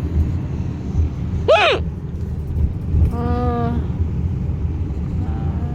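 Steady car road rumble inside the cabin. About a second and a half in, a woman gives one sharp, high hiccup squeak, followed by a short held moan around three seconds in and another near the end.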